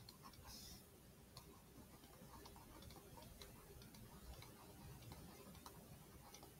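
Near silence with faint, irregular light ticks of a stylus tapping and sliding on a tablet screen as words are handwritten.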